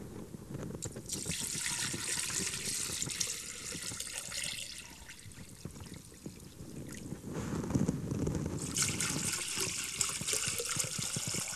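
Distilled water poured from a plastic jug into clear plastic water-filter canisters, in two pours of a few seconds each, the second starting about seven seconds in.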